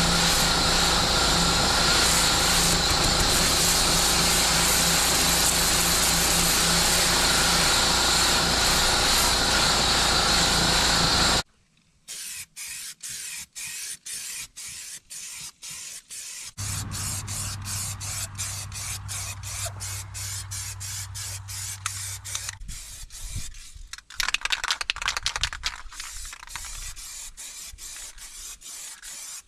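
Engine-driven pressure washer running steadily, a loud spraying hiss over the engine's steady drone. It cuts off suddenly and gives way to a series of short, chopped-up clips of spraying hiss and mechanical clatter, with a low hum in the middle stretch.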